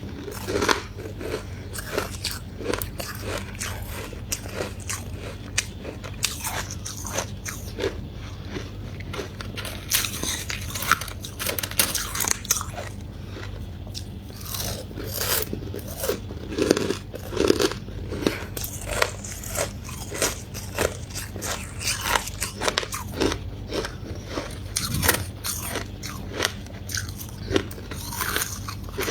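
Close-miked biting and chewing of ice, a dense run of irregular crisp crunches.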